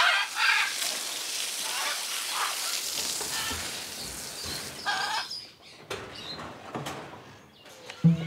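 Garden hose spraying water onto a concrete aviary floor, with scarlet macaws squawking several times over the spray. The spray stops about five and a half seconds in, leaving a few sharp knocks.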